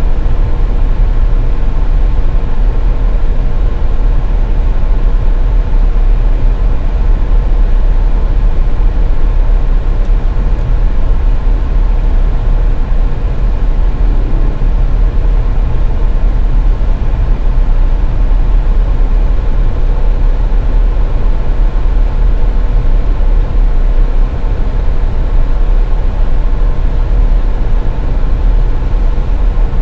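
Car driving at steady speed: a loud, unchanging low rumble of road and engine noise with a faint steady hum.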